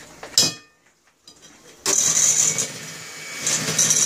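A short knock near the start, then about two seconds in an electric hand mixer switches on and runs, its beaters whirring through egg beaten into creamed butter and sugar.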